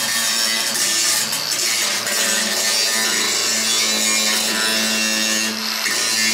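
Milwaukee angle grinder grinding down the weld bead of a freshly welded steel patch panel: a loud, continuous grinding hiss over a steady motor hum. The grinding lets up briefly near the end.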